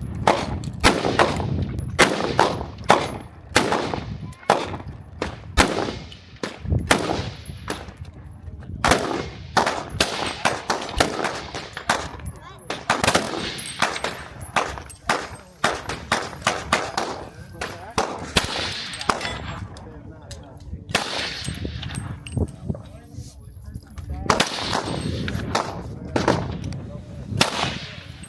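Gunfire at a shooting range: dozens of irregular gunshots, some loud and close, others fainter, with short gaps between strings of shots.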